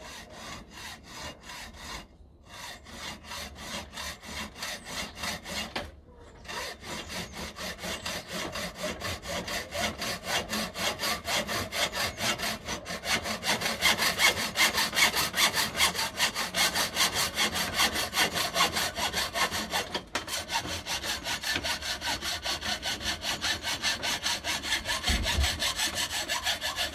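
Hand hacksaw cutting through a thick-walled aluminium tube held in a vise: a steady rasp of back-and-forth strokes, about three a second. It pauses briefly twice early on, grows louder about halfway through, and stops at the very end.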